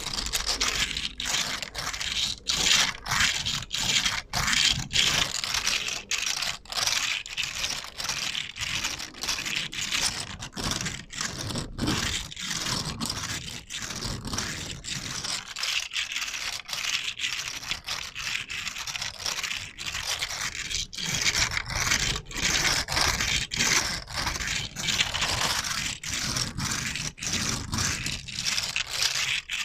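Close-up scratching and scraping on a surface in quick short strokes, about two to three a second, with no break in the activity.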